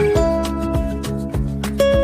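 Background music with a steady beat and guitar-like plucked tones.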